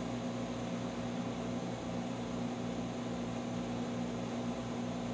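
Steady background hum with a constant hiss: room and recording noise, with a low electrical hum.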